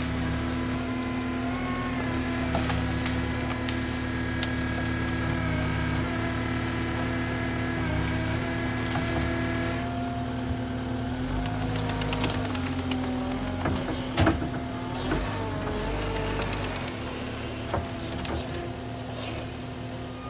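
Cat 277D compact track loader's diesel engine running steadily under load while it pushes through brush and small trees, with branches cracking and snapping. A few sharper knocks come about two-thirds of the way through.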